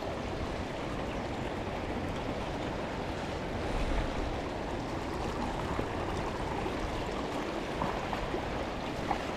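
River water running steadily over a shallow, stony riffle.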